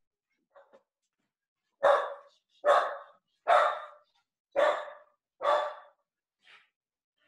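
A dog barking repeatedly: five loud barks about a second apart, with a fainter one before and after them.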